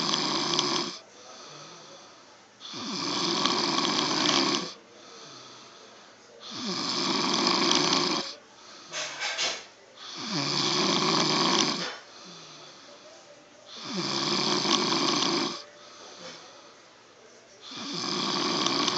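Sleeping man snoring: loud snores repeating about every four seconds, each lasting about two seconds, with quieter breathing between. Two brief short noises about nine seconds in.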